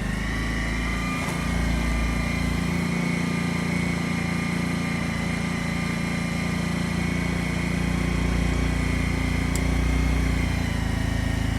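Honda EU10i inverter generator's small single-cylinder four-stroke engine running steadily just after starting, a steady hum with a high whine, its pitch settling within the first second.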